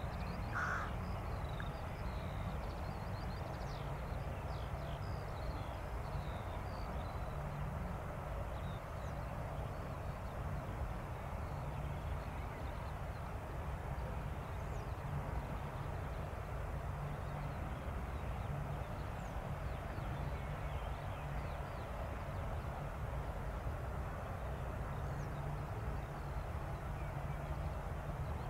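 Airbus A320 jet engines at taxi power heard from a distance, a steady low rumble. A bird calls once about half a second in, and small birds chirp now and then, mostly in the first few seconds.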